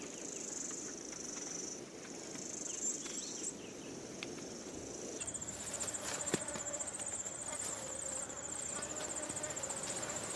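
Insects chirping: a high, steady buzzing that breaks off twice, then from about halfway a rapidly pulsing high trill that carries on.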